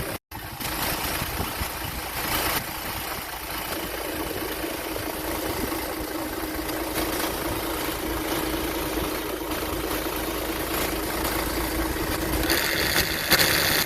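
Land Cruiser's 1HD diesel engine running with its old 10PA17 AC compressor: a steady mechanical noise over a constant hum, growing louder and harsher near the end. The noise comes from something broken inside the compressor.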